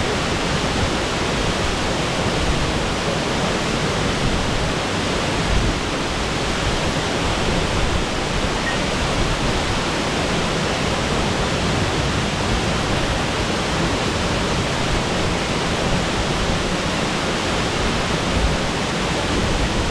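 Shasui Falls, a large waterfall, pouring steadily into its pool: a dense, even rush of water noise with no breaks.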